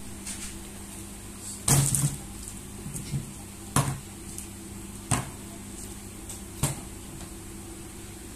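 Household handling knocks and clatter of a plastic bag being dealt with at a plastic bin, about four sharp knocks, the first and loudest about two seconds in, over a steady low hum in the room.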